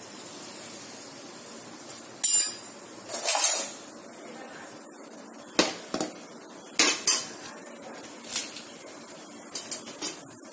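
A metal utensil scraping and clinking against a steel kadai as whole spices are stirred in hot oil: two short scrapes, then several sharp clinks.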